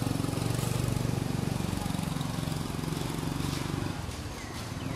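A motor running steadily with an even low drone, easing off a little near the end.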